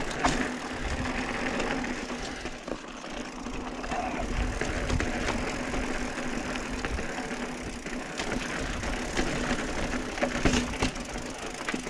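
Mountain bike riding over slickrock sandstone: rolling tyre noise with scattered clicks and rattles from the bike and a steady low hum.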